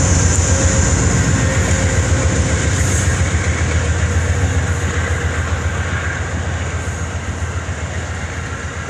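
Amtrak GE P42DC diesel locomotive passing slowly at close range, its engine giving a deep, rapidly pulsing rumble that fades steadily as it moves on and the baggage car and coaches roll by. A faint high whine dies away about three seconds in.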